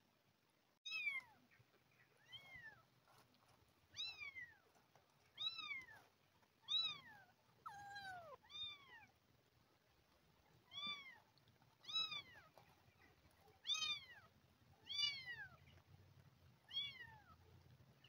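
Very young kitten, about two and a half weeks old, meowing over and over in short high cries that rise and fall in pitch, roughly one every second or two. One lower, longer cry comes near the middle.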